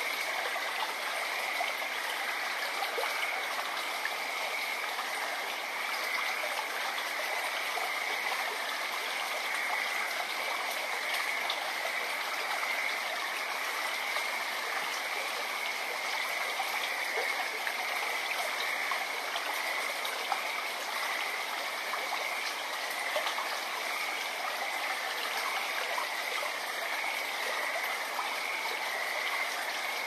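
A small stream flowing and babbling steadily. A continuous chorus of frogs sits over it as an unbroken high band.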